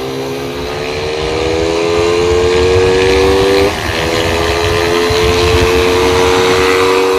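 Motorcycle engine pulling hard under acceleration, its pitch climbing steadily. About halfway through the pitch drops sharply at a gear change, then climbs again more slowly.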